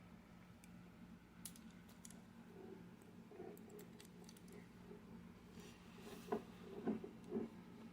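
Faint small metallic clicks and taps of a lock pick and tension wrench working in a Master padlock's keyway, with a few louder taps between about six and seven and a half seconds in, over a steady low hum.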